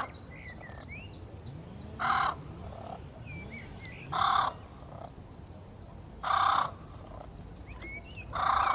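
A large bird giving a loud, harsh call four times, about two seconds apart, each call about half a second long. Small birds chirp and whistle in the background.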